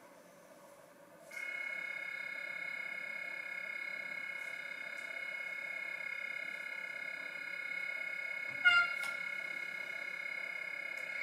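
Roco H0 Taurus model locomotive's sound decoder starting up about a second and a half in: a steady, high electrical whine of several tones from the model's small loudspeaker, with one short louder blip near the end.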